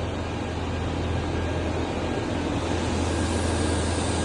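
Steady drone of machine tools running in a machining hall: a constant low hum under an even wash of noise, with no distinct strikes or changes.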